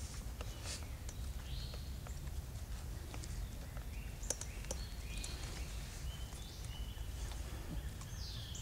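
A bird calling repeatedly: short whistled notes that slide downward, about one a second, with scattered faint clicks.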